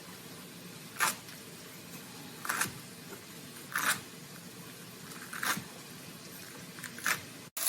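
Kitchen knife slicing through a roll of rainbow chard leaves onto a cutting board, cutting it into ribbons: five crisp cuts about one and a half seconds apart.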